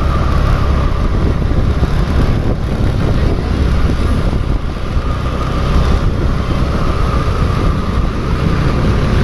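Steady rumble of road traffic: vehicle engines and road noise, with no horn sounding.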